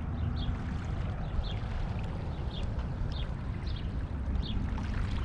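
Small waves lapping at a rocky shoreline, with wind rumbling on the microphone. Faint short high chirps repeat about every half second over the top.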